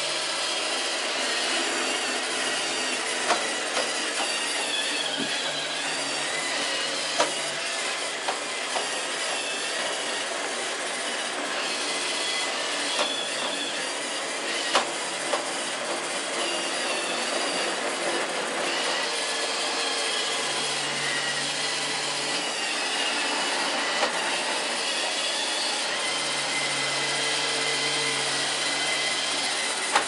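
iRobot Roomba 620 robot vacuum running on carpet: a steady whirring rush of its vacuum motor and brushes with a high whine. A few sharp knocks come now and then as it works along furniture.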